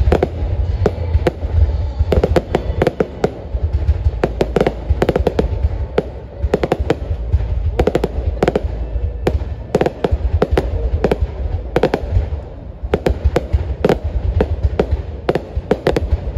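Aerial fireworks display: shells bursting overhead in rapid bangs and crackles, many per second, over a continuous low rumble of booms.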